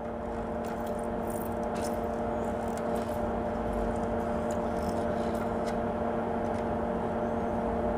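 Steady hum of a small bench fan running beside the work. Over it come faint, scattered scrapes and clicks of a soldering iron tip swept along the pins of an SRAM chip to desolder it.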